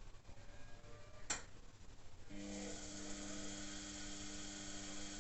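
Zanussi Aquacycle washing machine giving one sharp click, then a second later starting a steady mains hum with a hiss over it that keeps running.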